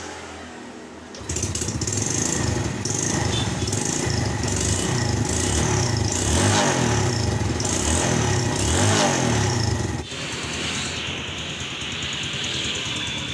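Yamaha Vega ZR motorcycle's single-cylinder four-stroke engine starting about a second in and revved up and down a few times, then dropping back to a steady idle about ten seconds in.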